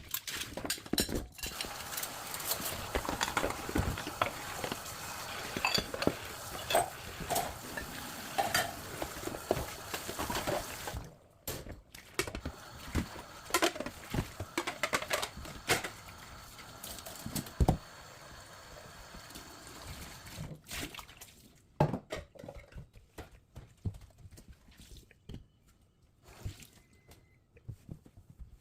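Dishes being washed by hand at a sink: running water with clinks of dishes and cutlery. The steady water sound drops away about eleven seconds in, leaving scattered clinks and handling sounds that grow sparser.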